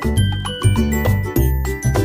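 Background music with a steady beat: a repeating bass line under bright, bell-like melody notes.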